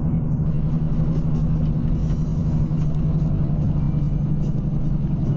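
Steady low drone and rumble of a vehicle cruising at highway speed, engine and road noise holding one pitch.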